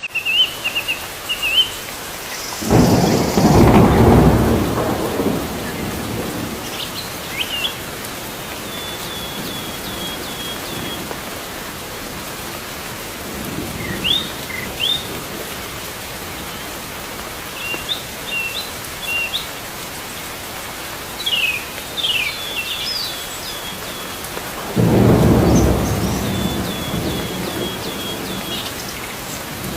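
Steady rain with two long rolls of thunder, one about three seconds in and another near the end, and small birds chirping on and off throughout.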